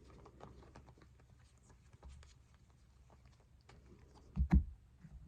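Baseball trading cards being handled and slid through one by one: faint paper slides and ticks, with two dull thumps about four and a half seconds in.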